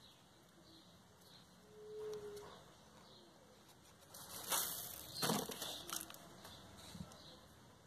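Rustling and crinkling of ribbon pieces being handled and folded by hand, with two louder bursts of rustle a little past the middle. Faint high chirps repeat in the background.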